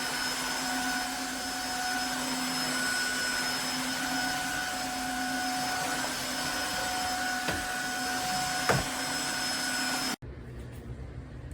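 Tineco iFLOOR 3 Breeze wet-dry floor cleaner's suction motor running steadily with a constant whine, with a couple of short knocks near the end before the motor cuts off abruptly about ten seconds in.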